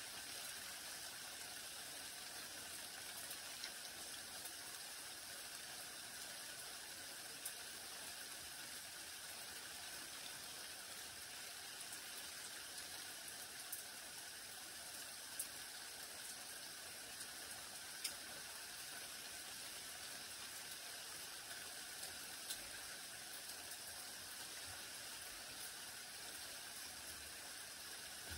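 Light rain falling on garden foliage: a steady, faint hiss with a few sharper single drops landing close by.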